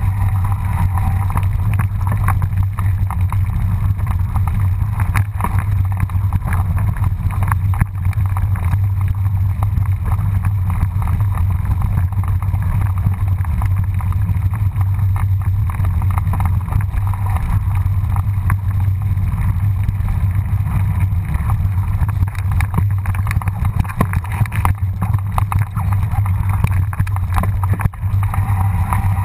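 Steady low rumble of wind buffeting the camera microphone while riding a mountain bike down a rough dirt trail, with frequent clicks and knocks from the bike and tyres jolting over stones and ruts.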